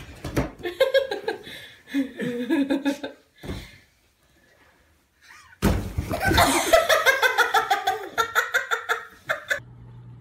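Laughter in two long, pulsing bouts, with a baby among those laughing. The second bout starts suddenly and is louder and higher-pitched.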